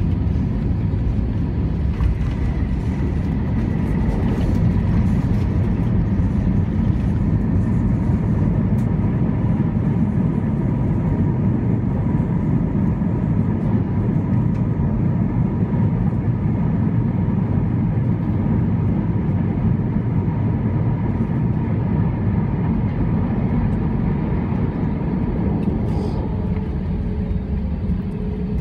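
Cabin noise of an Airbus A321-231 landing: a steady low rumble of its IAE V2500 engines, airflow and wheels as it touches down and rolls out with the ground spoilers raised. The rumble eases slightly near the end as the jet slows.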